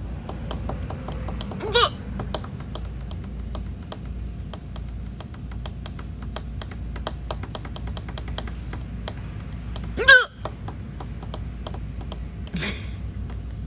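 A young woman's loud, sharp hiccups, each a short voiced yelp: one about two seconds in, the loudest about ten seconds in, and a fainter one near the end. Between them there is a steady run of light clicks over a low hum.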